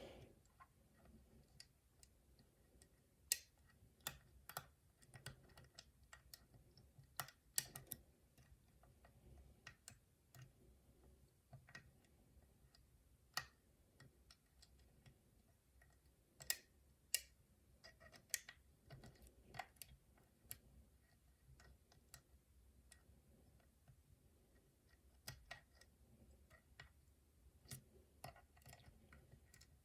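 Faint, irregular small metallic clicks and ticks of a lock pick working the wafers of a five-wafer locker lock during single pin picking, with quiet gaps between.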